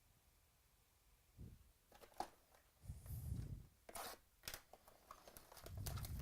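Trading card box and foil packs being handled and torn open: irregular crinkling and clicks with a few dull thumps, starting about a second and a half in after near silence.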